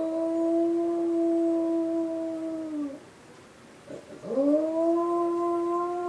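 Beagle howling along with a civil defense siren in two long howls. The first holds a steady pitch and ends about three seconds in. The second swoops sharply up about four seconds in and then holds steady.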